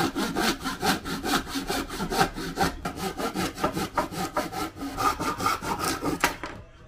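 Japanese ryoba saw cutting through a block of wood by hand in quick, even strokes, about four a second, stopping abruptly near the end.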